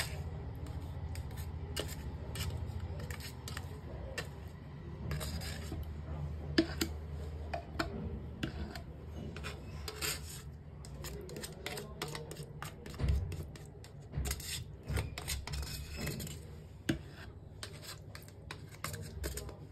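A knife scraping and tapping at a plastic pouch of curd, working the curd out into a glass bowl: an irregular string of scrapes, rustles and light clicks. A low steady hum runs underneath.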